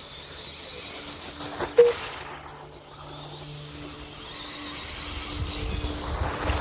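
Electric 1/10 scale RC stadium trucks racing, their motors whining and sweeping up and down in pitch as they accelerate and pass. A short, loud tone sounds about two seconds in, and a low rumble builds near the end.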